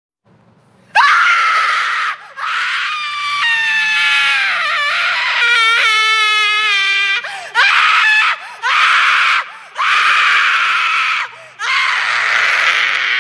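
Female screams, very high-pitched, about seven in a row with short breaks between them, starting after a second of silence. One scream slides down in pitch, and one near the middle is lower and more wailing.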